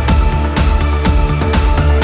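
Background music: an electronic track with a steady beat and heavy bass.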